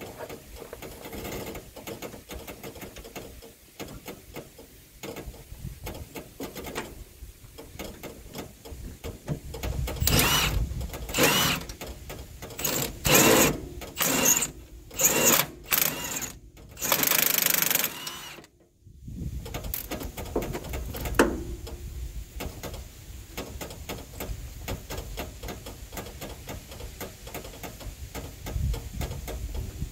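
A power wrench run in a string of short bursts on the truck's cab-suspension bolts, each burst under a second with a high whine, about eight of them between ten and eighteen seconds in; around them, lower tool clatter and a low steady rumble.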